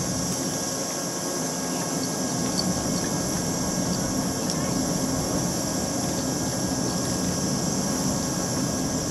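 Steady drone of a standing electric train's running equipment, a low hum with an even high hiss over it that does not change.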